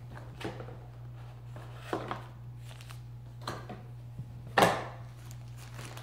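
Handling noises from lifting a camcorder out of its cardboard box and packing: a few light knocks and scrapes, the loudest one about four and a half seconds in. A steady low hum runs underneath.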